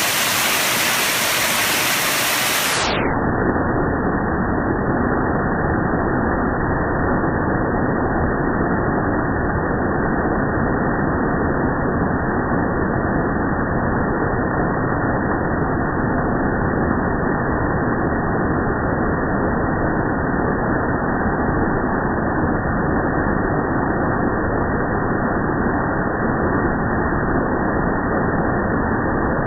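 Heavy hail pouring down in a dense, steady hiss. About three seconds in, the sound turns dull and deep because the audio is slowed down for slow-motion playback, and it stays that way.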